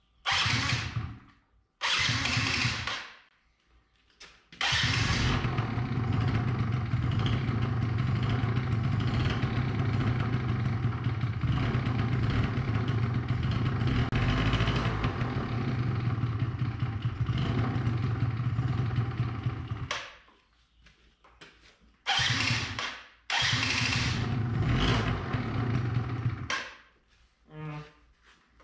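A 49 cc two-stroke single-cylinder Yamaha Zuma YW50 scooter engine being started. Two short tries are followed by a catch, and it runs steadily for about fifteen seconds before it cuts out. It is restarted and runs a few more seconds before dying again: an engine that will not stay running, here on a newly fitted ignition coil.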